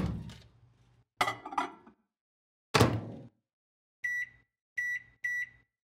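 Stainless Cuisinart microwave oven: its door latch clunks open, a couple of knocks follow inside, and the door shuts with a clunk a little under three seconds in. Then three short keypad beeps as the cooking time is entered.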